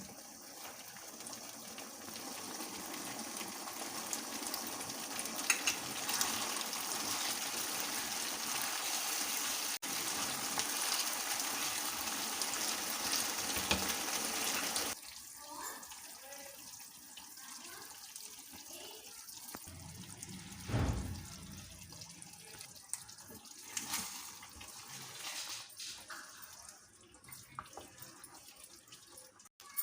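Water running steadily for about fifteen seconds, then stopping abruptly, followed by faint scattered clinks and knocks.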